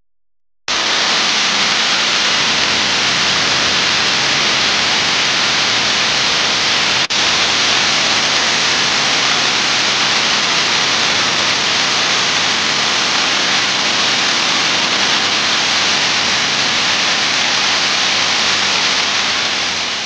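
A loud, steady hiss like static, starting abruptly under a second in, with a momentary break about seven seconds in, and beginning to fade at the very end.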